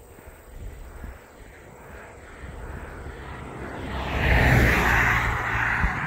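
A car passing close by on the road. Its engine and tyre noise swell to a peak about four seconds in, then fade as it drives off.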